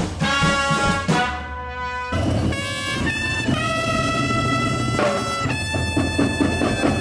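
Brass marching band playing: trumpets hold long notes over drums. The music changes abruptly about two seconds in.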